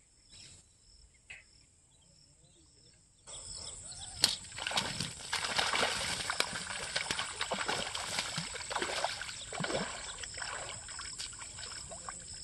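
A hooked rohu thrashing and splashing in the water while it is played on a fishing rod. The splashing starts suddenly about three seconds in, with one sharp loud splash soon after, and goes on in many quick strokes.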